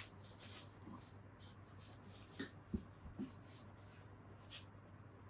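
Faint handling of small metal motorcycle parts, a starter clutch being fitted to the back of a flywheel: a few light clicks and knocks about two and a half to three seconds in, over a low steady hum.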